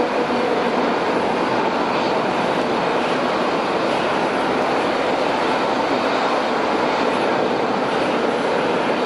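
Jet airliner's engines running steadily: a constant rushing noise with a faint, steady whine, neither rising nor fading.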